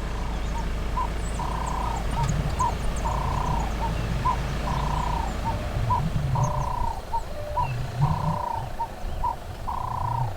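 A dove calling a repeated three-note coo, short, long, short, about every second and a half, over a steady low rumble and faint high chirps from other birds.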